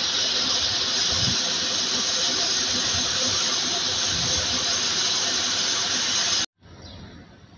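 Steady loud hiss that cuts off suddenly about six and a half seconds in.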